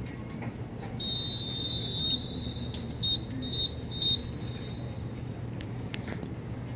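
A whistle blown, of the kind a drum major uses to signal a marching band: one long blast starting about a second in, then three short, sharp blasts about half a second apart. A steady low stadium rumble runs underneath.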